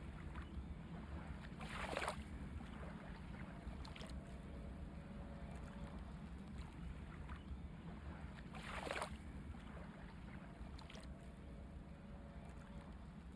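Faint sea surf washing onto a beach, with a steady rushing hiss and two louder swells of a breaking wave, about two seconds in and again near nine seconds.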